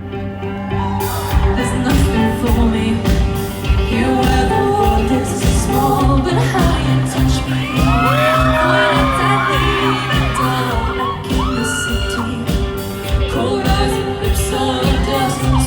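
Rock band playing live: a female lead voice sings over bass, guitars and steady drums.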